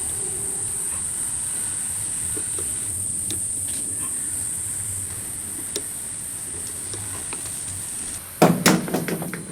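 Steady high-pitched insect chirring in the background. About eight seconds in, a quick run of loud sharp clicks and knocks from hand tools and parts being handled during brake reassembly.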